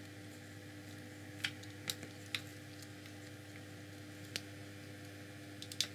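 A few light clicks and taps of small hard parts being handled during disassembly of an RC car, over a steady low electrical hum.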